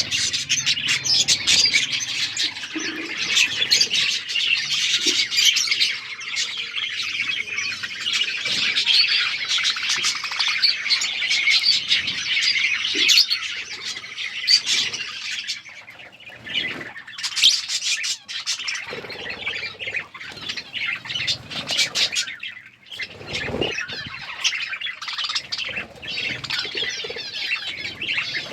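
A flock of budgerigars chattering and chirping continuously in a dense overlapping chorus, easing off briefly about halfway through, with scattered sharp clicks and wing flaps.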